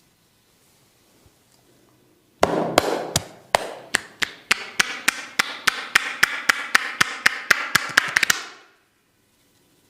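Rapid, evenly paced hand strikes on the head in a barber's percussive head massage, about four a second with a ringing between strikes. They start about two and a half seconds in, quicken slightly near the end and stop about eight seconds in.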